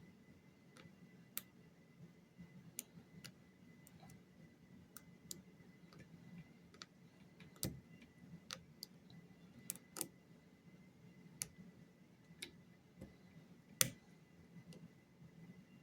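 Faint, irregular clicks of a lock pick working the pins inside a lock, with a sharper click near the end.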